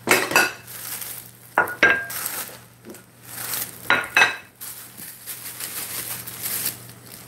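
Glass pie plates clinking as they are set down and knocked on a wooden butcher block: a few sharp clinks, one ringing briefly about two seconds in.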